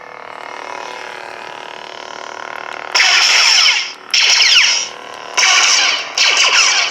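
CFX lightsaber soundboard playing an Obi-Wan sound font through the hilt's speaker: a steady blade hum for about three seconds, then four loud effect bursts in quick succession, each with falling tones, as the saber is swung or struck.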